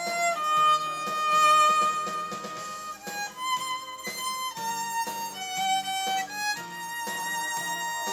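Violin played with a practice mute, bowing a slow song melody: one long held note for the first few seconds, then shorter notes moving step by step, over lower sustained accompanying tones.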